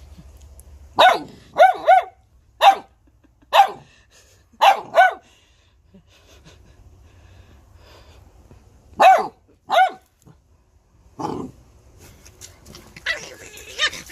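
A dog barking in short, sharp, high-pitched barks, singly and in quick pairs, about nine in all with a long pause in the middle. A lower bark comes about 11 seconds in, and a busier burst of yapping follows near the end.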